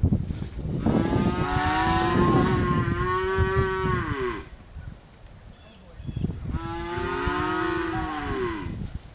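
Two long livestock calls, each about three seconds, holding a steady pitch and dropping away at the end.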